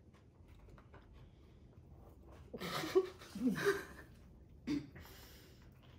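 Several women laughing out loud in a burst of about a second and a half, starting about two and a half seconds in, with a shorter laugh about a second later.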